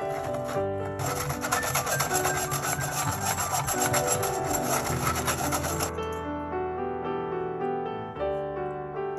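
Wire whisk scraping almond powder and powdered sugar through a fine stainless-steel mesh sieve: a fast, rhythmic rasping that starts about a second in and stops about six seconds in. Piano music plays throughout.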